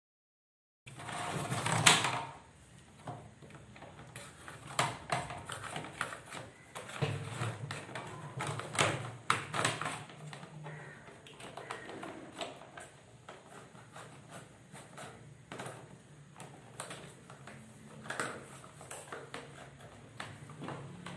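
Irregular clicks, taps and rustling of hand work on electrical wiring: a green-yellow earth wire being drawn through PVC conduit and fastened into terminals with a screwdriver. It begins after a second of silence, with the loudest clatter about two seconds in.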